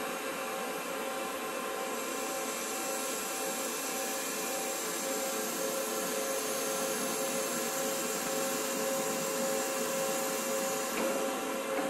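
Steady machine hum and whine of a large SNK BFR-3500 CNC horizontal boring mill running, over a hiss, with a higher tone that pulses on and off.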